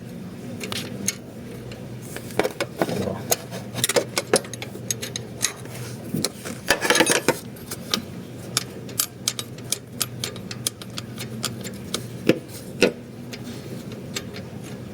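Hand tools clicking and clinking against metal in irregular sharp ticks while a bolt on the car's alternator belt tensioner is being loosened.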